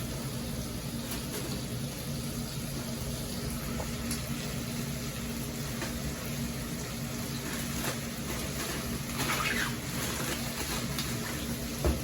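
Diced steak and peppers sizzling steadily in a hot pan, with a brief louder rustle about nine seconds in.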